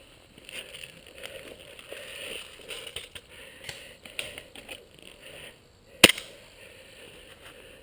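Footsteps crunching and rustling through dry leaf litter and undergrowth, with one sharp crack about six seconds in.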